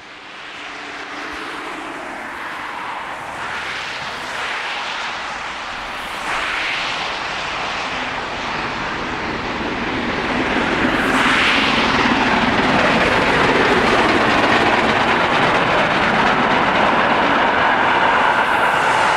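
Prussian P8 class 4-6-0 steam locomotive working a special train. Its exhaust and running noise grow steadily louder as it approaches, then stay loud from about halfway as the locomotive and its coaches roll past on the rails.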